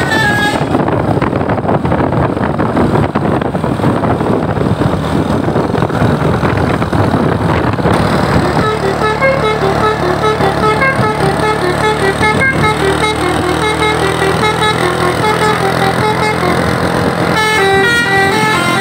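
A bus's basuri 'telolet' multi-tone horn plays a stepping tune of steady notes for the second half. A higher, faster run of notes comes in near the end. Before the tune, for several seconds, there is a loud rough rushing noise with no clear notes.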